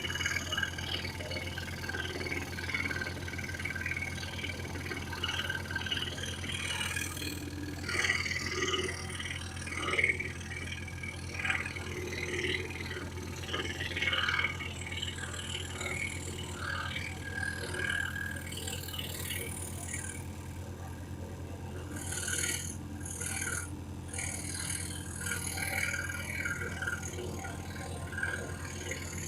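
Excalibur EX21 scroll saw running steadily, its very fine blade cutting through a piece of wood flooring with an irregular scratchy rasp over the machine's steady hum.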